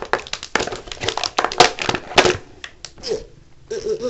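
Handling noise close to the microphone: a rapid run of clicks, crinkles and rustles, as of packaging and the camera being handled. It thins out after about three seconds, and a short low murmur comes near the end.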